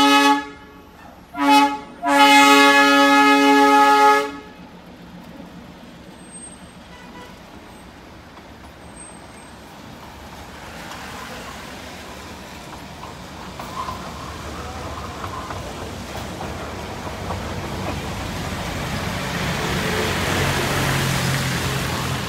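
Darjeeling toy train's horn sounding: the end of one blast, a short toot, then a blast of about two seconds. After that, a steady rushing noise slowly grows louder.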